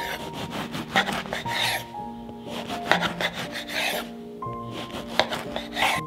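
A serrated bread knife sawing through a crusty loaf on a wooden board: rasping back-and-forth strokes about once a second as the crust crackles, over soft background music.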